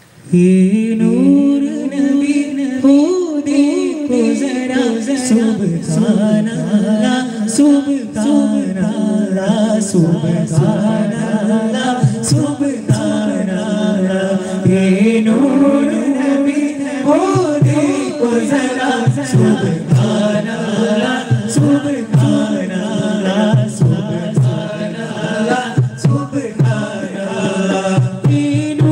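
Group of male voices singing together into microphones over a PA, starting right at the beginning, with occasional beats on a hand-held frame drum.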